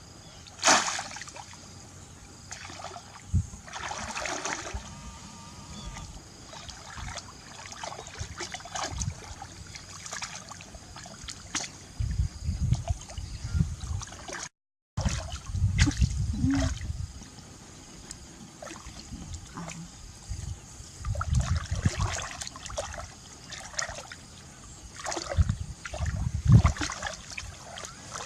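Water splashing, sloshing and trickling in irregular bouts, as when someone works by hand in shallow water. The sound cuts out completely for a moment about halfway through.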